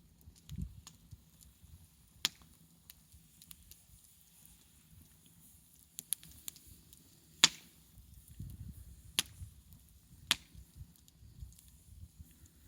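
Campfire crackling: scattered small ticks and a few sharp pops, the loudest about seven and a half seconds in.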